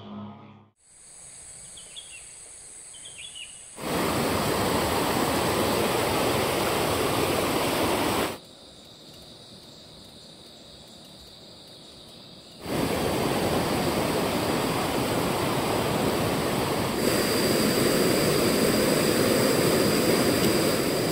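Steady rushing of a fast, high river. It alternates at abrupt cuts with quieter stretches of forest ambience holding a steady high whine and a few short bird chirps. A second steady high whine joins the water in the last few seconds.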